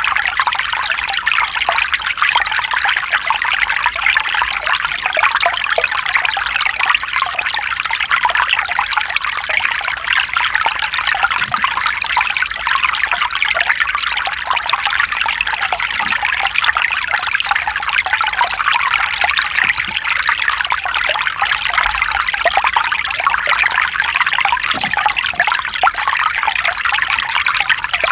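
Mountain stream running over rocks: a steady, bright trickling and splashing of water.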